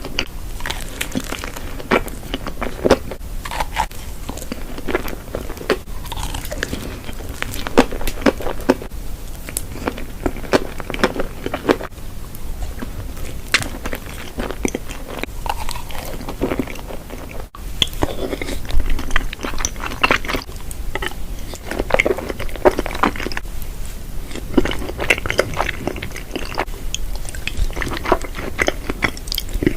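Close-miked chewing and biting of food, with frequent crunches in an irregular run of clicks and bites.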